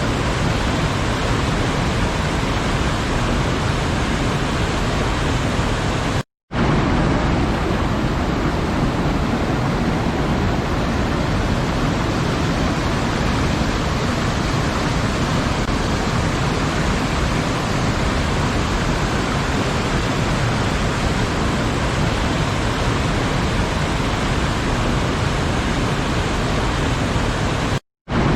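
Waterfall: a steady, dense rush of falling water that cuts out to silence for a split second twice, about six seconds in and near the end.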